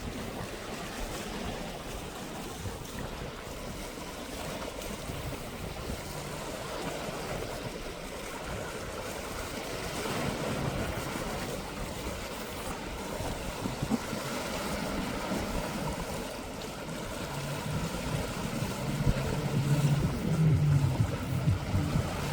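Sea waves washing with wind noise on the microphone. In the last few seconds a low hum comes in and grows louder.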